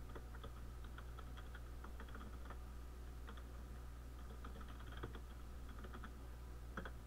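Computer keyboard typing: irregular, fairly quiet key clicks as a short command is typed, over a steady low hum.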